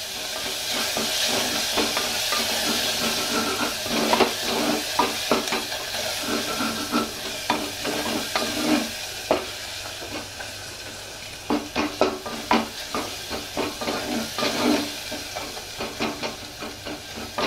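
Onions and ginger-garlic paste sizzling in hot oil in an aluminium pot, with a spatula scraping and knocking against the pot as they are stirred, the stage where the paste is fried until its raw smell goes. The scraping comes in quick strokes, thickest in the second half.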